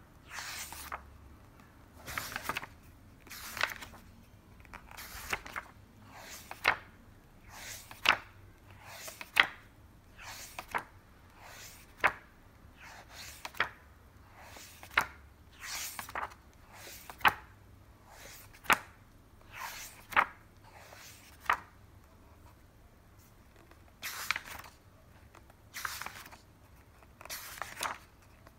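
Glossy pages of a large hardcover book being turned one after another by hand, a short papery swish about every second and a half, with a brief pause about two-thirds of the way through.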